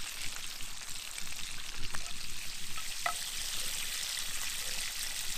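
Bacon sizzling in cast iron skillets over a campfire, a steady frying hiss, with a couple of light clicks about two and three seconds in.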